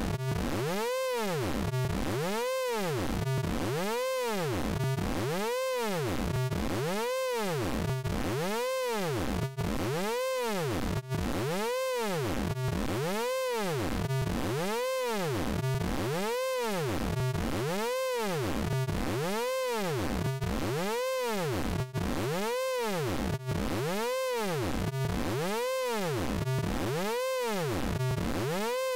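Synthesized vocoder tone from the Orange Vocoder plugin, a pitched buzz whose pitch sweeps up and back down over and over, roughly every three-quarters of a second, with a few brief dropouts.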